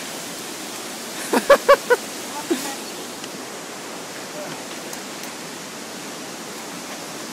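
Steady rush of creek water and a waterfall. About a second and a half in come four quick short high calls, with a fainter one just after.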